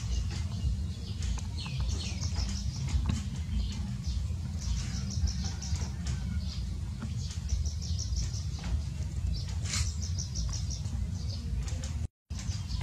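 Small birds chirping in quick, high-pitched trills, several bursts in a row, over a steady low rumble.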